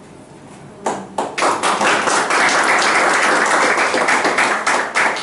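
Small audience applauding: a few separate claps about a second in, quickly building into steady applause.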